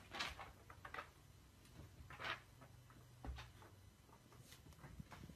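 Faint crinkles of a clear plastic bag being chewed in a dog's mouth: a handful of short crackles, roughly one a second.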